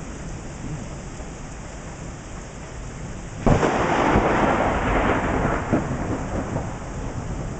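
Steady rain, then about three and a half seconds in a sudden loud clap of thunder that rumbles on for a few seconds and slowly fades.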